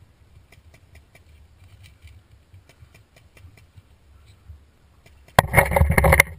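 Paintball marker firing a rapid string of shots for just under a second near the end, after only faint scattered ticks.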